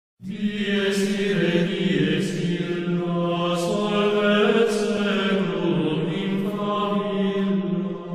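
Background music of voices chanting: a long held low drone note with a slowly moving melody sung above it, starting just after the beginning.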